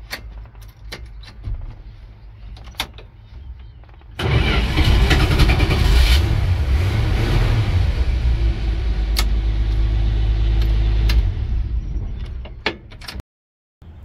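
A few sharp clicks, then about four seconds in the 1983 Dodge D150's slant-six engine is cranked with a push-button starter and runs loudly, fading near the end.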